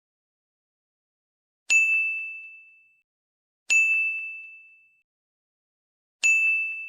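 Three bright, bell-like dings about two seconds apart, each struck sharply and ringing out over about a second, with dead silence between.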